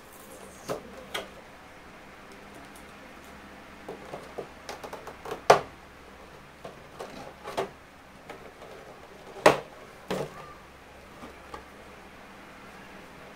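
Clear plastic packaging being handled and pulled off a figure: scattered crinkles and sharp crackles of the thin plastic bag and blister tray, with two louder cracks about five and a half and nine and a half seconds in.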